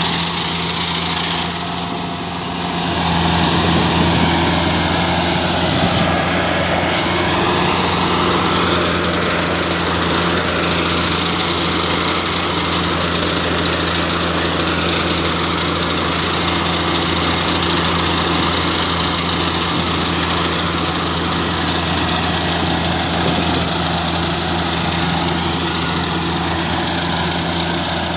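Combine harvester running steadily while cutting rice: a deep engine hum under a broad whir from the machinery, dipping briefly about two seconds in.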